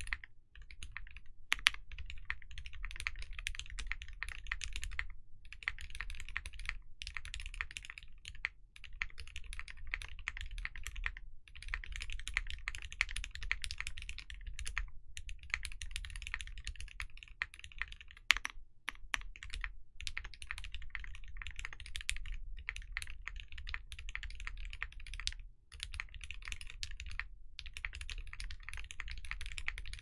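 Fast continuous typing on a Space Apollo 80 mechanical keyboard fitted with lubed and filmed Cherry MX Hyperglide switches, a polycarbonate plate with Poron plate foam, and GMK keycaps. The keystrokes come in runs broken by short pauses every few seconds, with a couple of sharper, louder strikes.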